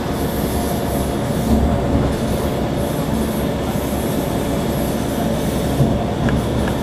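Passenger train running along the track: a steady rumble, with a few light clicks near the end.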